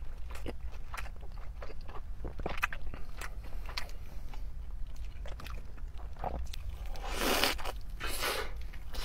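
Close-miked chewing of a thick toasted cheeseburger, with many small wet mouth clicks and smacks. Near the end come two louder, longer crunching sounds as another bite is taken.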